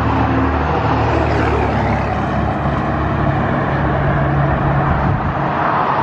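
Cars passing on a multi-lane city street: steady traffic noise with a low engine hum.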